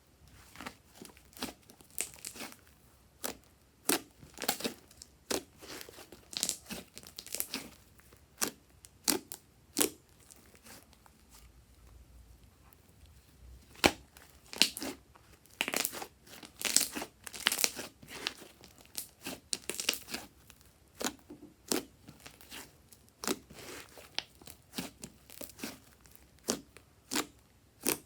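Fluffy slime being squeezed and stretched by hand, giving irregular sticky crackles and pops, with a quieter pause about ten seconds in before the crackling picks up again.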